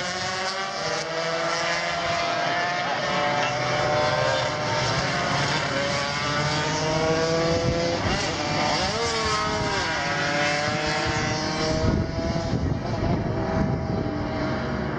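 Racing motorcycle engines running through a corner, several overlapping engine notes rising and falling in pitch, with one arching up and down about nine seconds in.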